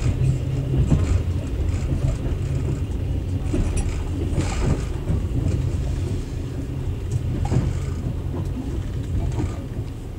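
Passenger train running, heard from aboard the carriage: a steady low rumble of wheels on the rails, with a few sharper clatters, the strongest about four and a half and seven and a half seconds in.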